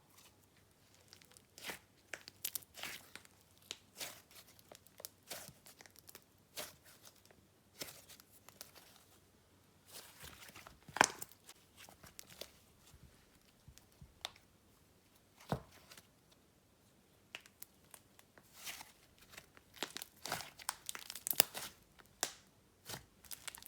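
Hands squishing, stretching and mixing a thick swirled icing slime, giving irregular sticky crackles, pops and clicks, with a short lull a little past the middle.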